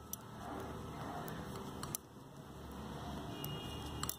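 Knitting needles working purl stitches in wool, with a few faint, sharp clicks over a low steady background hum.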